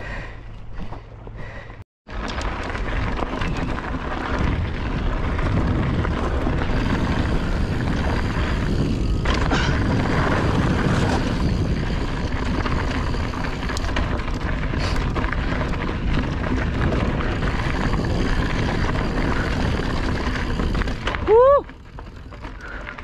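Mountain bike rolling fast down a rocky dirt singletrack, wind rushing over the camera microphone along with tyre and trail noise. A brief, loud squeal rises in pitch near the end.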